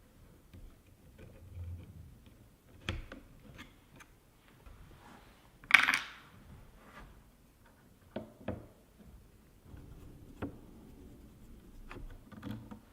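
Scattered light clicks and knocks of metal scope rings, tools and scope being handled as the scope is set into its rings, with one louder sharp clack about six seconds in.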